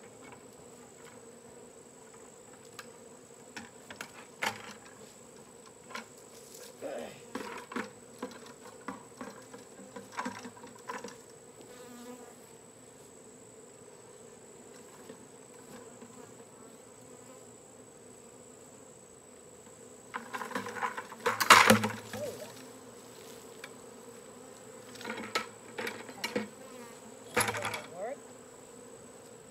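Honeybee swarm buzzing, a steady hum. Irregular rustling and knocks come and go over it, loudest about two-thirds of the way through.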